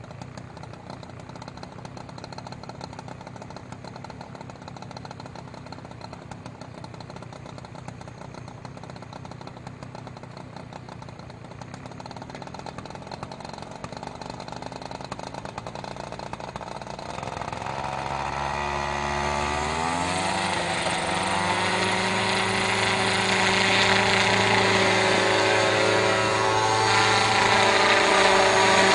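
Engine of a home-built helicopter running low and steady, then revving up past halfway, its pitch rising over a few seconds. It then holds a louder, steady note.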